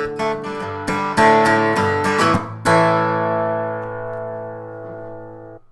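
Intro music on acoustic guitar: a run of strummed chords, then a final chord left ringing and slowly fading, cut off just before the end.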